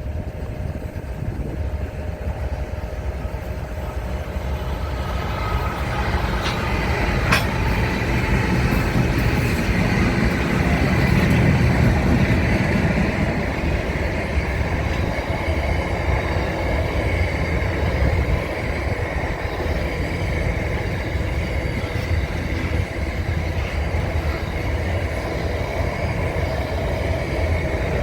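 A train running by on the rails: a steady rumble that builds over the first ten seconds or so and then holds, with one sharp click about seven seconds in.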